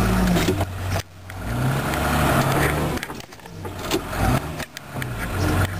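Trail groomer's engine working under load, revving up and down as its front plow pushes a fallen tree off the trail, with brief sharp drops in the engine sound about one, three and nearly five seconds in.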